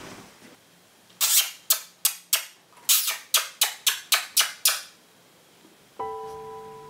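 About a dozen sharp kissing clicks made with pursed lips to call a pet budgerigar, in two quick runs. A steady musical note starts near the end.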